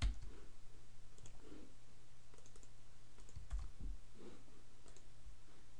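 Computer mouse clicks: a sharp one at the start, then a few more about three and a half seconds in, over a faint steady low hum.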